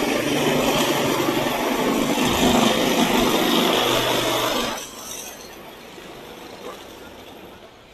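A vehicle close by in street traffic: a loud rushing hiss with a low engine hum underneath, cutting off about five seconds in.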